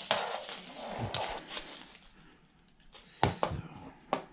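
Hands handling shower-system parts. There is rustling for about the first two seconds, then a sharp knock about three seconds in and another near the end, as the fittings are set down and fitted together.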